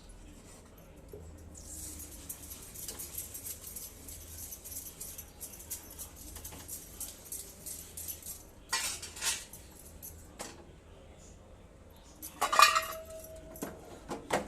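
A metal spoon scrapes around a cooking pot, with a few knocks. About two seconds from the end, metal strikes the pot sharply and rings briefly.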